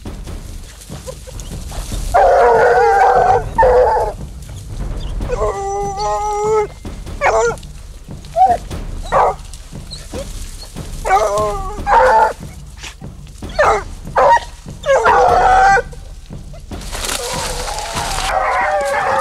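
Ariégeois scent hounds baying, a series of long, drawn-out bays and shorter cries with brief pauses between, the voice hounds give when working a hare's scent.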